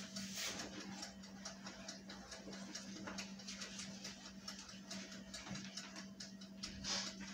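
Quiet kitchen background: a steady low hum under faint, irregular ticking and crackling, with a brief rustle just after the start and another near the end.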